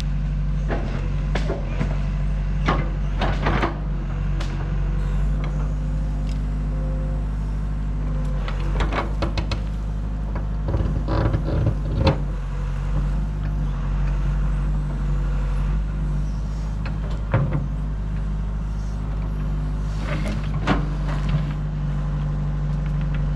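Heavy machine's engine running steadily at a constant speed, with scattered clanks and knocks over it.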